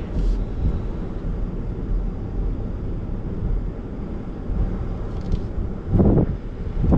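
Pickup truck crawling slowly down a steep rocky trail, heard inside the cab as a steady low rumble of engine and tyres over rock, with a louder surge about six seconds in.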